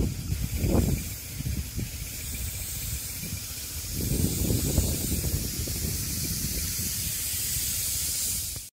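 Hose-fed pesticide spray wand hissing steadily as it mists young shallot plants, fed by a jet-pump power sprayer, with an uneven low rumble underneath.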